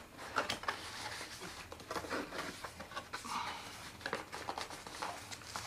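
Cardboard packaging being handled: an outer sleeve slid off a box and the inner box's flaps opened, with irregular scraping, rustling and small taps.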